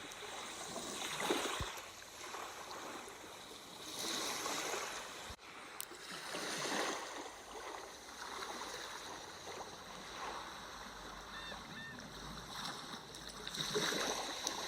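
Sea waves washing in and receding, in slow swells a few seconds apart.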